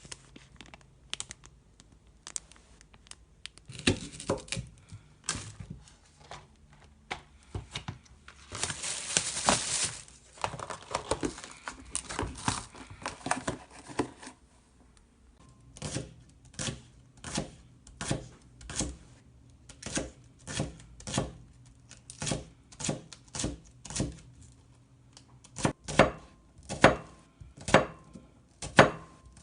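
Kitchen knife chopping on a cutting board in slow, even strokes about every 0.7 seconds through the second half, after scattered knocks and packaging rustling in the first half.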